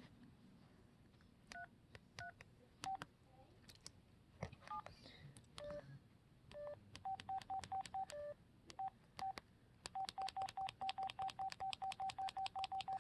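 Keypad beeps from an LG basic cellphone as its buttons are pressed: scattered short single beeps at a few different pitches, each with a faint key click, then from about ten seconds in a fast run of the same beep, about five presses a second.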